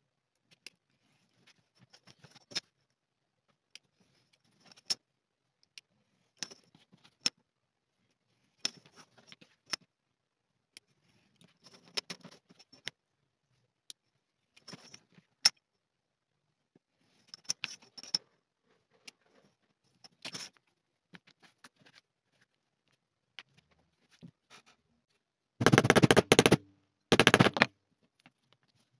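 Craft knife cutting leather along a steel ruler on a cutting mat: short scratchy strokes and small clicks, spaced a second or two apart. Near the end come two loud rapid rattles of about a second each.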